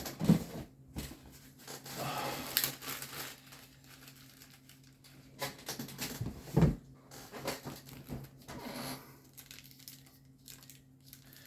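Packaging being handled, crinkling and rustling on and off, with two sharp knocks, one just after the start and another about six and a half seconds in.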